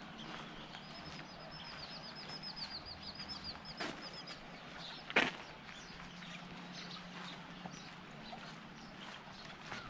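A bird calling in the forest: a rapid run of high, even chirps, about four or five a second, lasting about three seconds. There is a sharp click about four seconds in, and a louder one about five seconds in.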